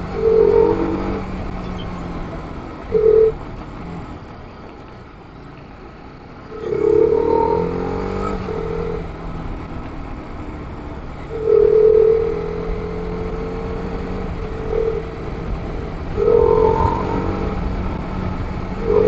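TVS Apache RR 310 motorcycle riding with its engine running, the note dropping away for a couple of seconds and then picking up again as the throttle opens. Horn honks cut in several times, mostly short, with one longer blast.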